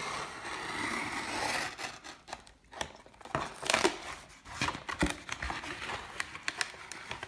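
A small Victorinox pocketknife blade slitting a cardboard mailer's flap, a steady scratchy cutting sound for about two seconds. Then the cardboard is torn open and handled, with a run of sharp crackles and taps.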